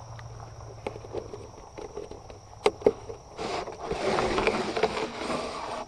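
Scattered clicks and snaps, then from about halfway in a few seconds of louder rustling and crackling, as of vegetation or material being handled. A steady high cricket trill runs underneath.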